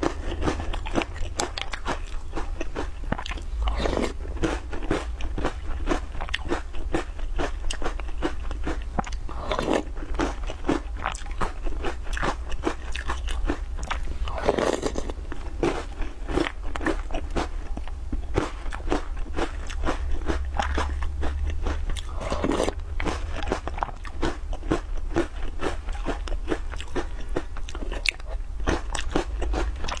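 Close-miked eating of small round biscuits soaked in milk: continuous crisp crunching and chewing, with a louder sip from the spoon every five seconds or so.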